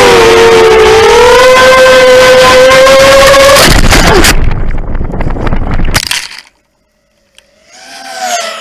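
Vortex 250 Pro racing quadcopter's four brushless motors and propellers whining at high throttle, with wind rush, the pitch dipping and rising. A few seconds in the quad crashes into the grass: a loud burst of tumbling and scraping noise, then the sound cuts out. Near the end a fainter motor whine rises again.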